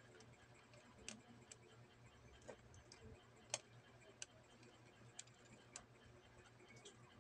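Near silence: faint room tone with about seven short, sharp clicks at irregular intervals, the sharpest about three and a half seconds in.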